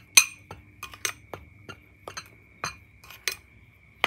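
Metal spoon stirring dry seasoned flour in a glass bowl, clinking against the glass about ten times at irregular intervals, with the bowl ringing on in a steady high tone.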